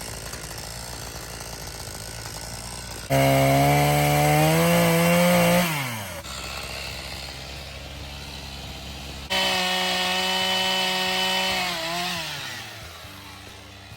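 Echo two-stroke chainsaw idling, then revved up to high speed twice: about three seconds in for about two and a half seconds, and again about nine seconds in for about three seconds, each time dropping back toward idle.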